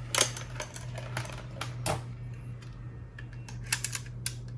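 Scattered light clicks and taps from handling a portable cassette player and small tools, over a steady low hum.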